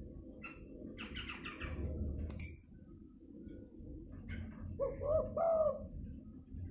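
Spotted dove cooing: three short arched coos about five seconds in, the 'fighting' call used as a lure to draw wild spotted doves. Before them, a quick run of bird chirps and one sharp click about two seconds in.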